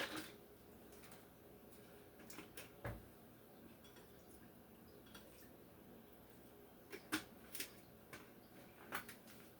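Near silence with a few faint clicks and knocks of kitchen utensils being handled while ingredients are measured: one about three seconds in, a few more near the end.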